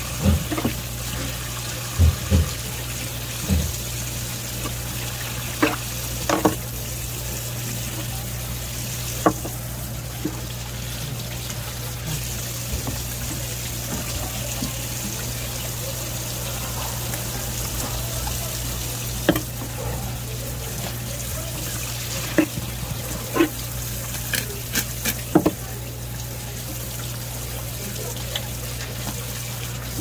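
Steady running water, as from a tap at a sink, over a low steady hum, with a dozen short, sharp knocks scattered through it.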